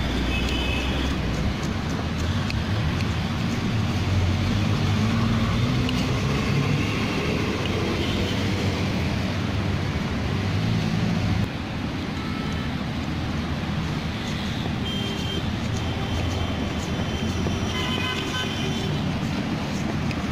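Busy road traffic: a steady rumble of passing engines, with horns sounding now and then, at the start, about fifteen seconds in and again near the end.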